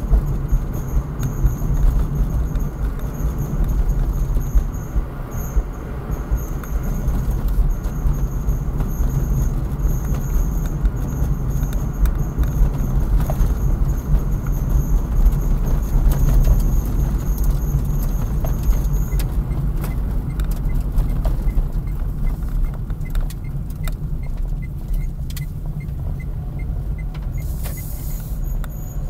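Steady engine and tyre rumble of a moving car, heard from inside the cabin, with faint clicks and rattles.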